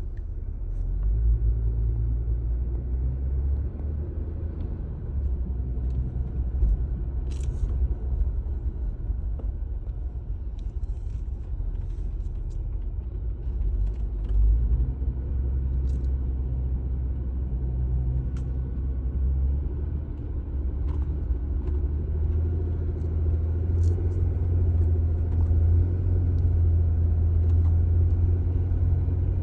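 Car driving up a steep road: a steady low engine and road rumble, the engine note shifting up and down and growing louder in the last several seconds, with a few faint clicks.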